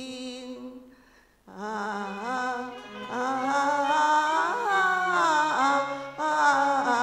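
A singer ends a sung phrase. After a pause of about a second, Cantonese opera music starts up: a sliding, ornamented melody line over a stepping bass.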